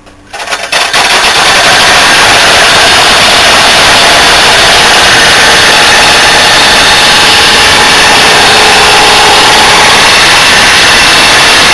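Smashed Email window air conditioner starting up about a third of a second in and running with a loud, rapid mechanical rattle from its damaged, jammed fan. The rattle holds steady at full level throughout.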